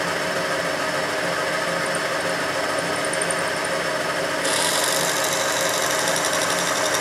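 Drilling machine running steadily with a motor hum while a twist drill works into a steel part. About four and a half seconds in, a harsher, higher cutting noise with a fast chatter sets in as the bit bites into the metal.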